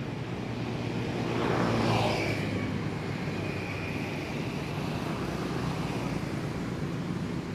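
A passing motor vehicle: its engine swells to a peak about two seconds in, with a pitch that drops as it goes by, then settles into a steady drone.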